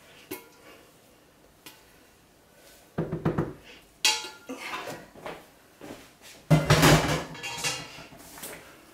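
A pot and utensils being handled: a couple of faint clicks, then from about three seconds in a run of knocks and clattering, loudest near two-thirds of the way through, with a little metallic ringing.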